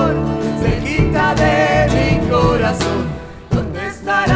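Live folk song: singing voice over instrumental accompaniment, dipping briefly about three and a half seconds in.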